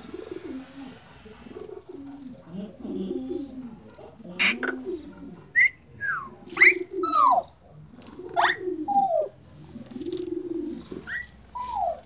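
Birds calling: a repeated low cooing runs throughout, and from about halfway sharp whistled notes that fall steeply in pitch join in several times. There is a single sharp click about a third of the way in.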